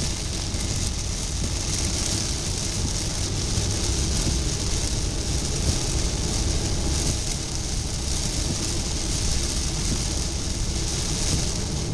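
Heavy rain hitting a moving car's windshield and body, over steady tyre and road noise, heard from inside the cabin.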